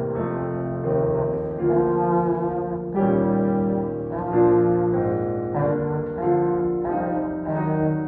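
Trombone solo with digital piano accompaniment: held brass notes, moving to a new note every second or so, over piano chords.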